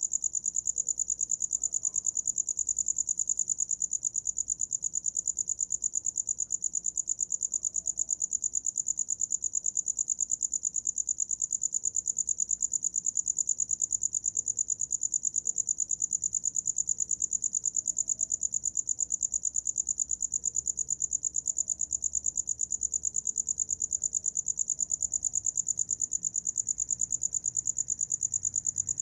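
A cricket chirping without pause: a high-pitched, rapid and perfectly even pulsing trill.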